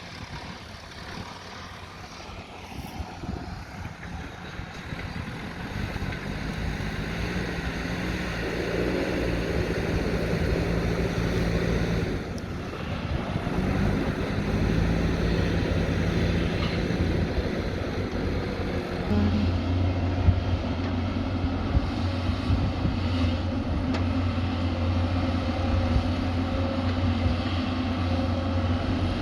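Diesel engine of heavy earthmoving equipment (backhoe loader or excavator) working, growing louder over the first several seconds and changing pitch a few times. About two-thirds of the way in it settles into a steadier, deeper drone, with a couple of sharp knocks soon after.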